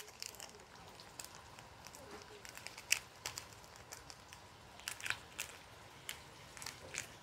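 Lard in a wok gently frying garlic, cinnamon sticks and star anise, with faint, irregular crackles and pops from the bubbling fat; the louder pops come about three and five seconds in.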